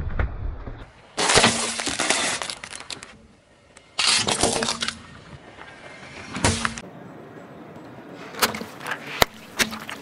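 Car tyre rolling over and crushing plastic containers on asphalt. It makes two bursts of cracking and crunching, about a second in and again around four seconds, then a few sharp cracks and pops near the end.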